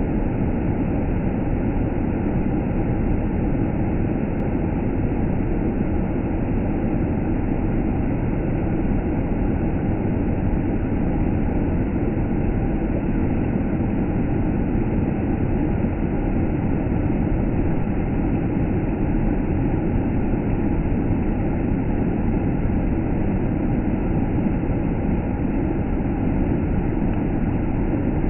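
Waterfall rushing: a loud, steady, unbroken roar, heaviest in the low end.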